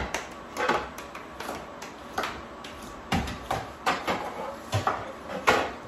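Kitchen work sounds: about ten irregular knocks and clicks, the loudest near the end.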